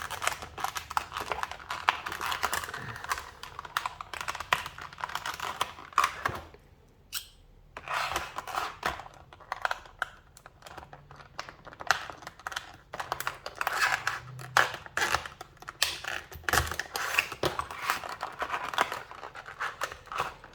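Padlock retail packaging being worked open by hand: a busy run of crackling, scraping and clicking from plastic and card, with a short lull about seven seconds in.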